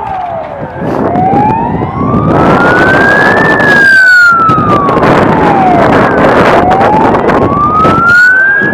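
Emergency-vehicle siren wailing, its pitch slowly rising and falling: it falls at the start, climbs for about three seconds, falls again and climbs once more near the end. A loud rushing noise sits under it through the middle.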